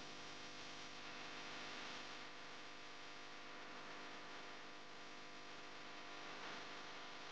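Faint steady electrical hum with hiss.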